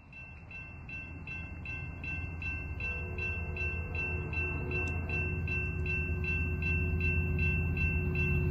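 Railroad crossing warning bell ringing in an even rhythm, about two to three strikes a second, over the low rumble of an approaching Amtrak passenger train that grows steadily louder.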